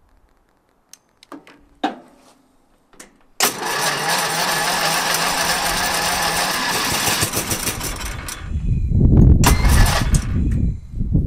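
Riding lawn tractor's engine being jump-started from a rebuilt lithium jump pack, with its own battery dead at zero volts, on a cold day. A few clicks, then the electric starter cranks steadily for about four seconds, and the engine catches and runs with a heavier low sound near the end.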